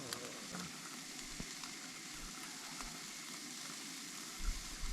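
Food sizzling steadily in a pan, with a few light knocks near the end.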